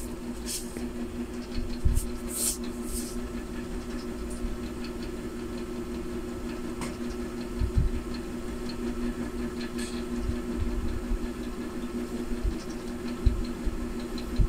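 Steady low hum, like a small fan or motor, with a few soft knocks and clicks from soldering work on an amplifier board.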